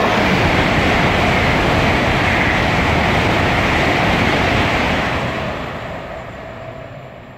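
LNER Azuma (Class 800/801) high-speed train passing through at speed, a loud rush of wheels on rail and air that holds steady, then fades from about five seconds in as the train draws away.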